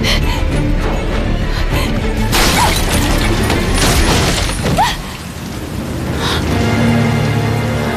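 Dramatic film score with a loud crash about two seconds in, as wooden lattice doors are burst open.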